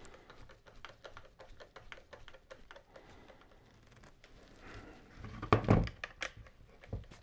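Light clicks and taps of a cordless power tool's hard plastic housing and screw-in side handle being handled, with a couple of louder knocks about five and a half seconds in.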